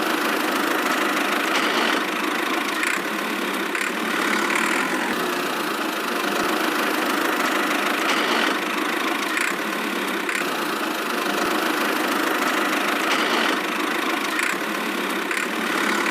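Small motor of a miniature DIY tractor running steadily, with a faint pulse about once a second.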